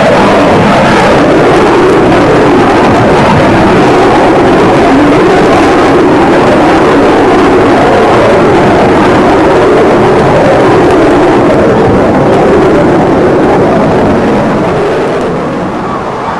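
Jet noise from a BAE Hawk's Adour turbofan engine as the jet flies overhead: a loud, steady rush that starts to fade about two seconds before the end.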